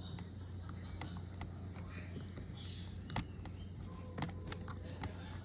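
Person eating a crunchy corn dog: chewing with a few sharp crunches about three, four and five seconds in, over a steady low hum.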